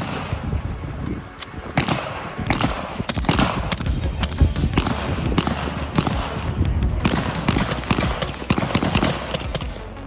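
Gunfire on a shooting range: many sharp shots fired in quick, uneven succession, at times several a second.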